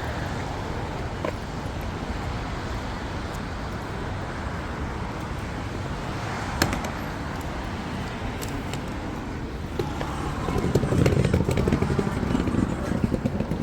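Steady outdoor road-traffic noise, with a louder low rumble of a vehicle swelling about ten seconds in.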